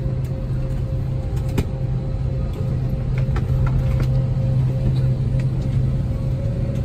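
Steady low drone of an Airbus A320's cabin with a constant hum, and a few faint light clicks.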